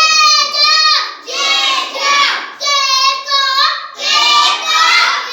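A young child's high voice chanting phonics sounds in a sing-song way, in short phrases about a second apart.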